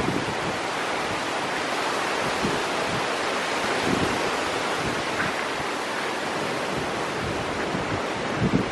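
Hurricane wind blowing hard in a steady rush, with gusts buffeting the microphone in low thumps that grow stronger near the end.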